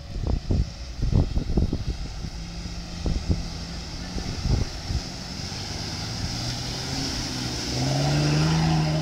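Mitsubishi Montero's V6 engine under load: low, irregular thumps and rumble during the first half, then the engine revs up and rises in pitch, loudest near the end as the 4x4 claws up a steep sand bank with spinning wheels.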